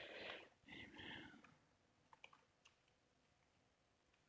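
Near silence with a soft noise in the first second and a half, then a few faint computer keyboard keystrokes about two seconds in.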